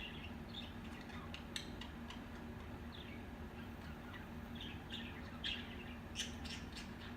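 Budgerigars making scattered short chirps, falling squeaks and sharp clicks, over a steady low hum.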